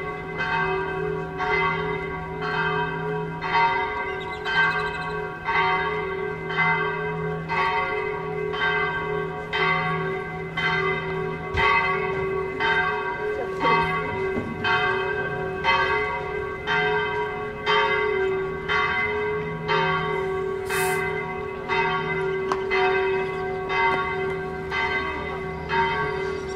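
Bells ringing in a fast, even peal, about three strokes every two seconds, each stroke ringing on over a steady low hum.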